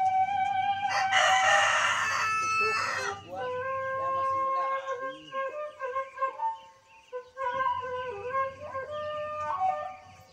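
A rooster crowing once, about a second in, for some two seconds, over steady flute background music.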